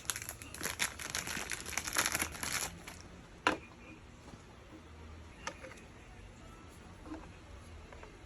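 Blind-box packaging crinkling and tearing as it is opened, dense for the first three seconds, then one sharp click about three and a half seconds in and a few faint ticks after.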